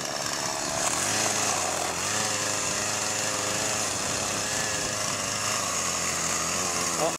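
Husqvarna two-stroke chainsaw running steadily, its engine pitch wavering slightly with the throttle.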